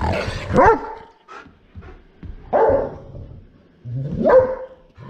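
A large dog barking excitedly while jumping about: three loud barks about two seconds apart, the last gliding up in pitch.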